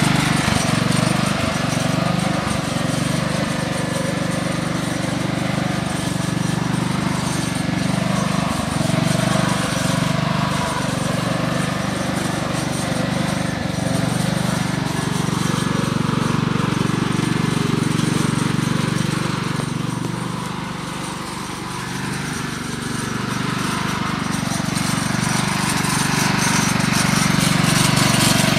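Riding lawn mower's engine running steadily as the mower is driven along. It grows quieter for a couple of seconds about three-quarters of the way through, then picks back up.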